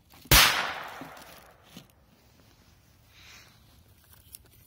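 A Korsar 3 one-shot firecracker going off with a single sharp bang about a third of a second in, its echo dying away over about a second.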